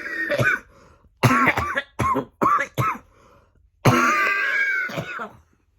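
A man's coughing fit: a harsh cough, then a quick run of four short coughs, then a longer drawn-out cough about four seconds in. It is the lingering, really bad cough he has had for eighteen days.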